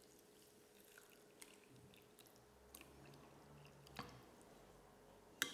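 Very faint wet sounds of water being poured over dry couscous in a glass bowl and stirred in with a metal spoon, with a light knock about four seconds in and a sharper click near the end.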